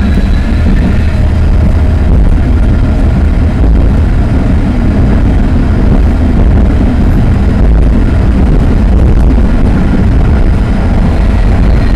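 Tram running along the track, heard from inside the cab: a loud, steady rumble with a faint whine from the drive.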